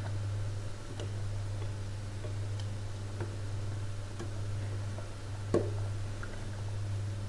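A ladle stirring sauce in a stainless steel pot, giving scattered light taps and clicks against the pot, the sharpest a little past halfway, over a steady low hum.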